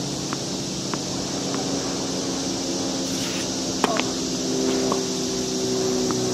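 A tennis ball bounced three times on a hard court, then a sharp racket strike on the ball about four seconds in, with a few softer hits and bounces after. A steady low hum from a motor runs underneath.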